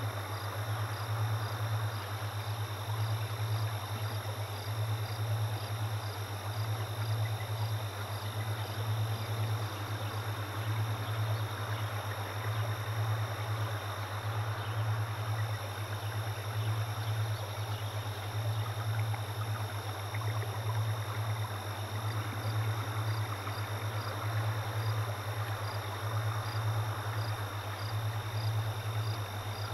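A steady low electrical hum, slightly pulsing, with thin high whining tones and a soft hiss beneath it.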